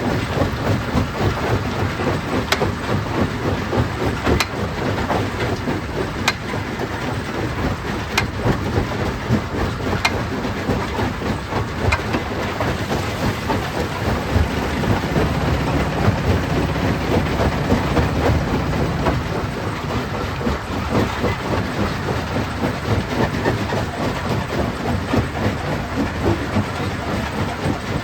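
Stone crusher plant running, a continuous dense rumble and rattle of rock being crushed. Through the first half a faint sharp tick comes about every two seconds.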